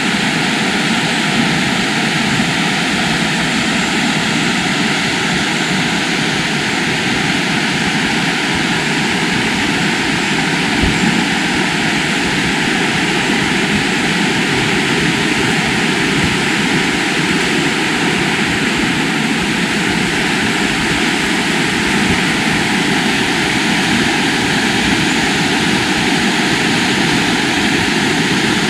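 Fast-flowing river water rushing steadily, an even noise with no breaks.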